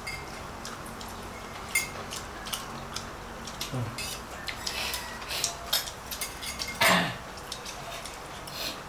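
Scattered light clinks and taps of plates and plastic food containers during a meal eaten by hand, with one louder knock about seven seconds in.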